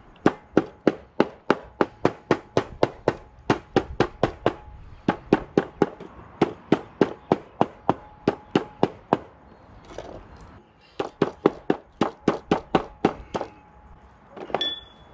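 A raw octopus being beaten on a board to tenderize it: runs of sharp strikes, about three a second, broken by two short pauses.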